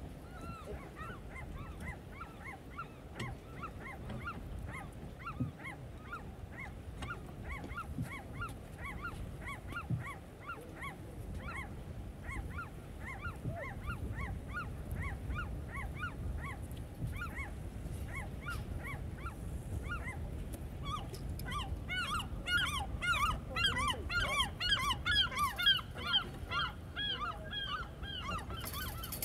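Gulls calling over and over, short high yelping cries about twice a second, that grow louder and more crowded about two-thirds of the way in. Light clicking and rattling join them near the end as a wire crab pot is hauled up to the rail.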